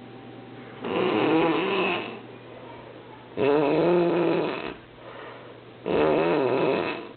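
Snoring: three long snores about two and a half seconds apart, each with a wavering, fluttering tone.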